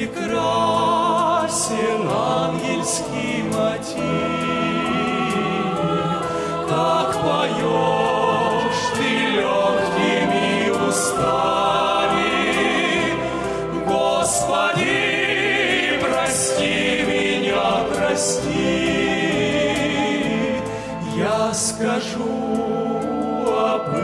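Music: a devotional song passage with choral singing over instrumental accompaniment.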